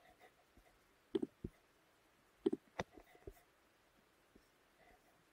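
Faint computer mouse clicks: a quick pair about a second in, then a cluster of three or four about two and a half to three seconds in.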